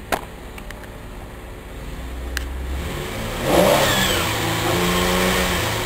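2009 Holden Commodore's 3.6-litre V6 revved with the car in Park: the engine note builds, surges about three and a half seconds in to around 3,500 rpm, holds, then begins to ease off near the end. A single sharp click comes just at the start.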